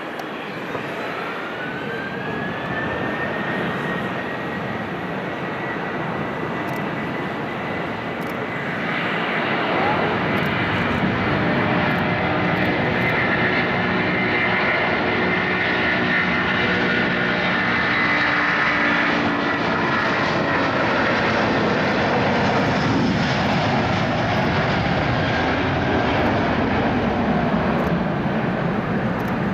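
Twin turbofan engines of an Airbus A330-223 (Pratt & Whitney PW4000) at takeoff thrust. A whine rises in pitch in the first few seconds, then loud, steady jet noise builds from about nine seconds in and holds.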